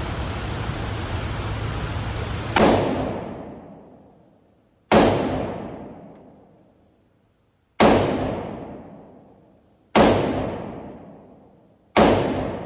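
Five single gunshots from an AR-15 rifle in 5.56, fired slowly about two to three seconds apart, each echoing away over a couple of seconds. A steady hiss comes before the first shot.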